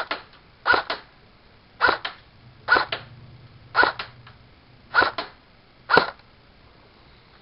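Airsoft electric rifle fired on semi-automatic: seven single shots about a second apart, each a sharp snap followed by a quick second click.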